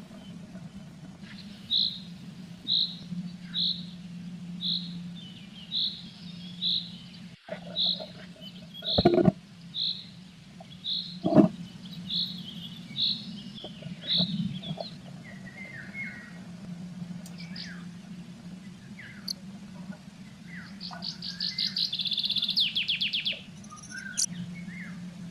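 A small songbird calling: a single high chirp repeated over and over, a bit more than one a second, for about thirteen seconds, then a short rapid trill near the end. Two loud knocks come in the middle of the chirping, and a steady low hum runs underneath.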